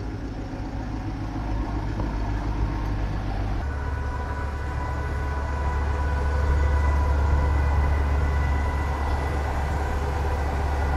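Truck crane's diesel engine running under load while lifting and swinging a precast concrete slab, its deep hum stepping up to a louder, steadier note about three and a half seconds in, with a faint high whine.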